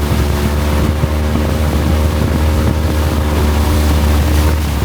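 Longtail boat engine running steadily under way, a constant low rumble with a stack of steady engine tones.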